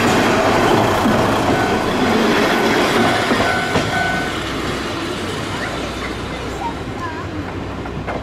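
Kominato Railway KiHa 200 diesel railcar passing close and pulling away: engine running and wheels clattering over the rails, fading over the last few seconds. Short high squeals come from the wheels around two and four seconds in.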